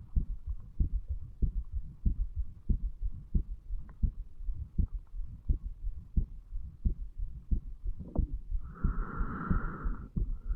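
Human heartbeat picked up at the mitral valve area of the chest: a steady run of low thumps, about one beat every two-thirds of a second. About eight and a half seconds in, a louder hissing noise rises over the beats for over a second.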